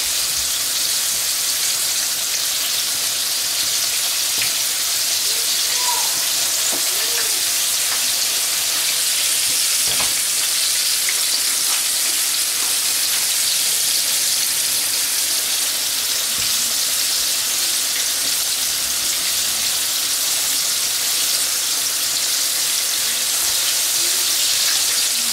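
Floured chicken pieces shallow-frying in hot oil in a frying pan: a steady sizzle with an occasional faint crackle.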